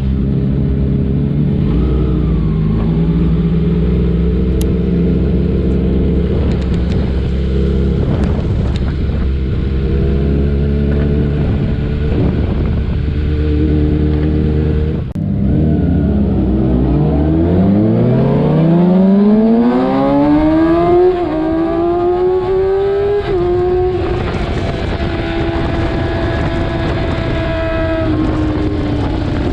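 Kawasaki ZX-6R inline-four motorcycle engine running at steady revs, then, after a short break about halfway, its pitch climbs steadily for several seconds as it accelerates, then holds high and eases slightly down near the end.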